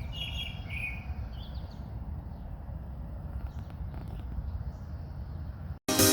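Small birds chirping in short bursts over a steady low rumble of outdoor background noise. The chirps are clearest in the first second and fainter afterwards. Just before the end the sound cuts off and rock music starts.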